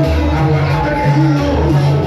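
Latin dance music played loud over a sonidero sound system, with a strong, steady bass line.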